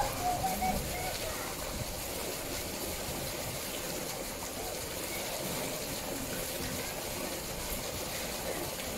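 Steady rush and trickle of water in a polar bear's pool, with faint voices of onlookers in the first second.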